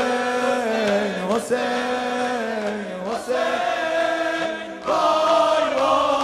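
Male reciter chanting a Shia Muharram lament (noha) through a microphone, holding long mournful notes that slide and bend in pitch, with short breaks between phrases.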